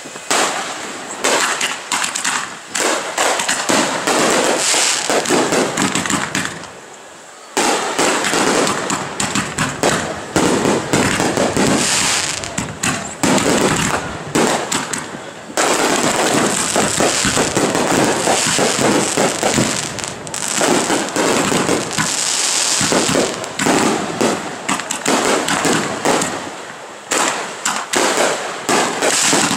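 Aerial fireworks bursting overhead in quick succession: a dense run of bangs and crackling, with a short lull about seven seconds in.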